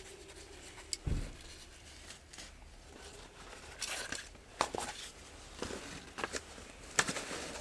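A thump about a second in, then scattered clicks and rustling handling noise, with two sharper clicks later on.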